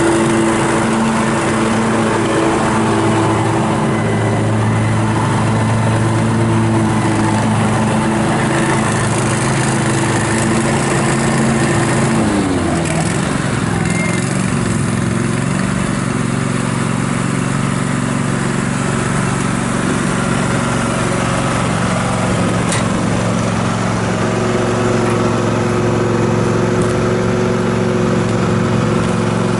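Kubota G2000 lawn and garden tractor's 20 hp V-twin gas engine running steadily as the tractor is driven. About twelve seconds in, the engine speed drops to a lower, steady speed, which it holds from there on.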